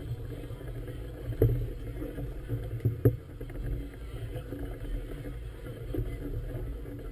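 Low, dull rumble of wind and choppy water moving against a moored vessel, with a couple of short knocks about one and a half and three seconds in.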